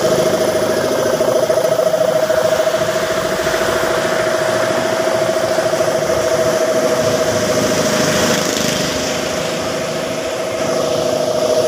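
Air compressor for spray painting running steadily, a continuous fast-pulsing mechanical hum.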